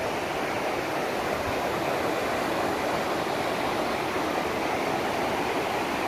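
Waterfall rushing steadily, water pouring down a cliff face.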